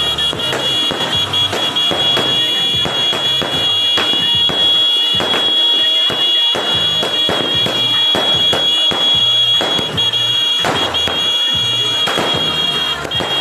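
Consumer fireworks going off in a dense, continuous run of bangs and crackles, over a steady high-pitched whistle that holds throughout.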